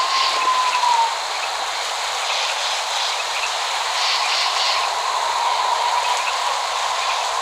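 Steady rain falling, an even hiss with no thunder, with a thin steady high tone running through it that fades about a second in and returns later.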